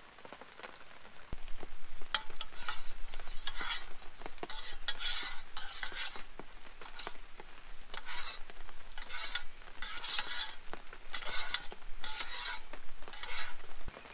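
A long-handled spoon stirring and scraping inside a small metal camping pot set on a backpacking stove, in repeated strokes with an uneven rhythm and little clicks of the spoon against the pot. It starts about a second in and stops suddenly near the end.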